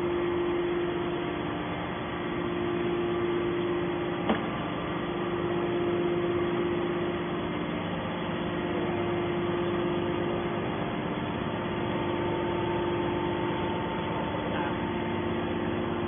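Hydraulic scrap metal baler's power unit, electric motor and hydraulic pump, humming steadily at a constant pitch, with one sharp click about four seconds in.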